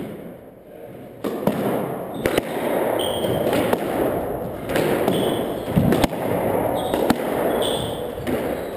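Squash rally: the ball being struck and cracking off the court walls about once a second, with sneakers squeaking on the hardwood floor, over steady background noise.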